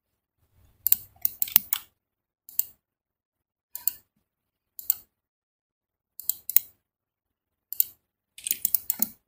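Computer mouse buttons clicking: a quick run of clicks about a second in, single clicks roughly a second apart, and another quick flurry near the end.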